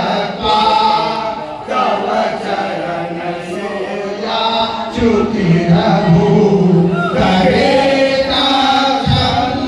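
A girl's voice reciting Hindu shlokas in a chant into a microphone, in phrases with short breaks between them.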